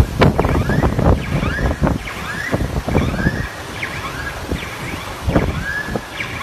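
Floodwater surging and splashing against building walls, with wind buffeting the microphone. Short rising squeaks recur every second or so.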